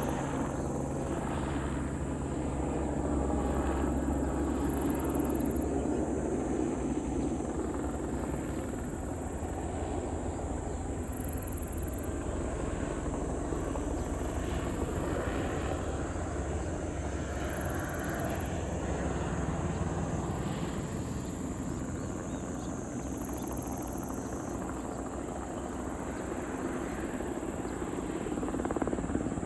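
Crop-spraying helicopter's rotor and engine running continuously, growing somewhat louder a few seconds in and again near the end.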